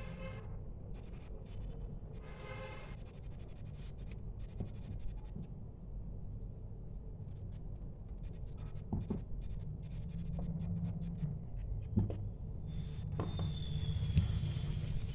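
Washi tape being handled on a scrapbook page: short zips as the tape is pulled off the roll near the start, then scratchy rustling, scissors snipping, and a few sharp clicks as the strip is cut and pressed down, over a steady low hum.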